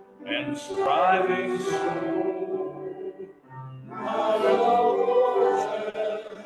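A church congregation singing a hymn together, two long sung lines with a brief pause between them about halfway through.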